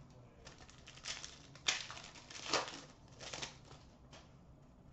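Hockey trading cards being handled: a few short papery rustles and crinkles as cards are slid off the stack and set down.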